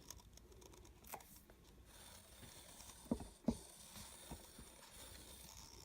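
Faint handling sounds: a few soft knocks and taps over quiet room tone.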